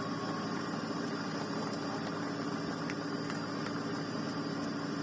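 Aircraft turbine machinery running steadily: an even rushing noise over a low hum.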